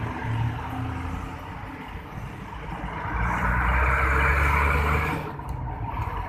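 Heavy container trucks passing close by, diesel engines giving a low rumble with tyre noise. The passing swells about three seconds in and fades soon after five seconds.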